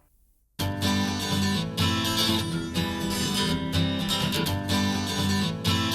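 Music playback heard through in-ear monitors. After a brief near-silence, an acoustic song starts abruptly about half a second in, with strummed acoustic guitar over a pulsing bass line.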